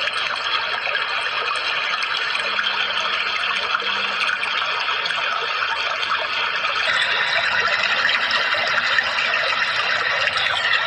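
Steady rushing of running water, a dense hiss with no break. A thin steady tone over it stops about seven seconds in, and the water gets slightly louder from there.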